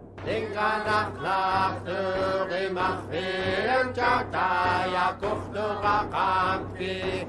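Background music: a chanted vocal sung in short repeated phrases over a steady low drone.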